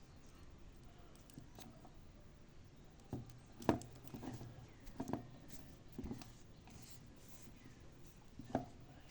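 Faint handling noises as a cable is turned over in the hands: a handful of short, soft knocks and clicks spread over several seconds, the loudest about three and a half seconds in.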